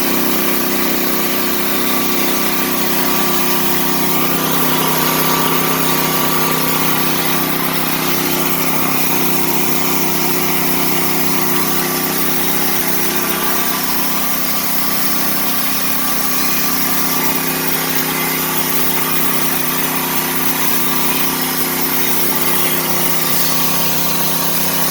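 Predator 420 single-cylinder gasoline engine on a homemade band sawmill, running steadily at constant speed.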